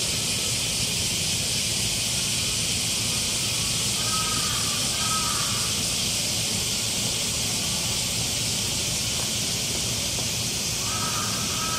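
Steady high hiss, with brief faint calls about four seconds in and again near the end.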